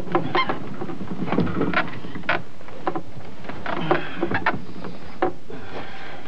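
Rustling of bedding and clothes, with soft irregular knocks and creaks, as two people climb onto a bed and settle on it. Under it runs a steady hiss and low hum.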